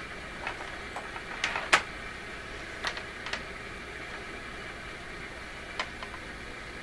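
Several sharp clicks and small clatters of an oscilloscope probe and test leads being clipped back onto the radio chassis, the loudest about two seconds in. Under them runs a steady hiss and hum from the tube shortwave receiver's speaker, tuned between weak stations.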